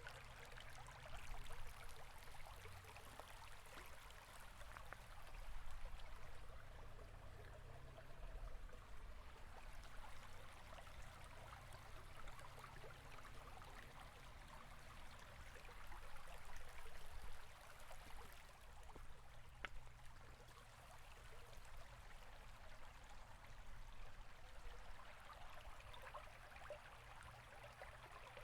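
River flowing: a faint, steady rush of water over a low rumble, swelling and easing in level every few seconds.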